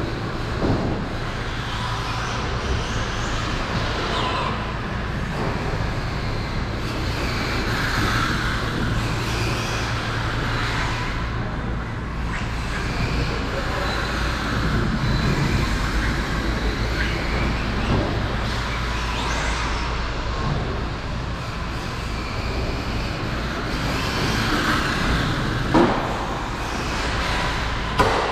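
Electric RC cars' motors whining up and down in pitch as the cars speed up and slow down around the track, over a steady low hum, with a couple of sharp knocks near the end.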